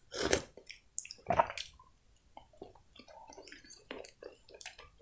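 Two slurping sips of hot tea from a mug, one right at the start and one about a second and a half in, followed by many soft, wet mouth clicks.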